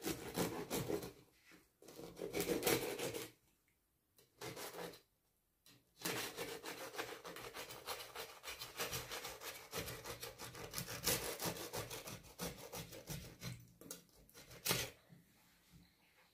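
Rapid rasping, scraping strokes of kitchen work on food or a board, coming in runs with a couple of short pauses.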